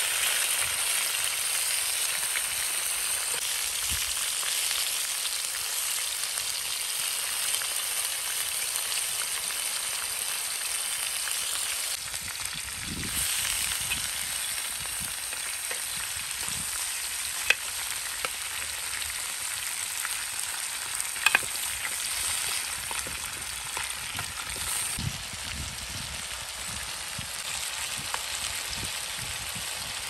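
Oil sizzling steadily in a large black pan of tomato slices and vegetable strips frying over a wood fire, with a metal spoon stirring and a few sharp clicks of the spoon against the pan past the middle.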